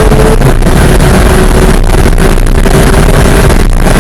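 Porsche 991 GT3's naturally aspirated 3.8-litre flat-six running at high, nearly steady revs, heard from inside the cabin under heavy road and wind noise. Its pitch settles a little lower about half a second in.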